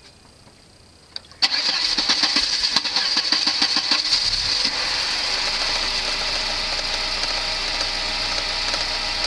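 Volvo 940 engine being started: a click of the key, then the starter cranking the engine with a rhythmic beat for about three seconds before it catches and settles into a steady idle. The long crank is the car's hard-starting problem.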